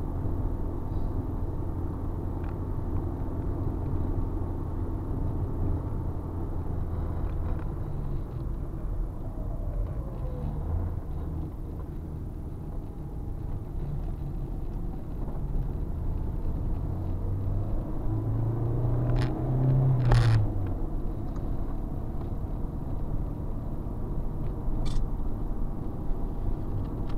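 Car interior drone picked up by a windshield-mounted dashcam: a steady low engine and road rumble with vibration noise. The engine note rises briefly about two-thirds of the way through, and a single sharp knock comes just after.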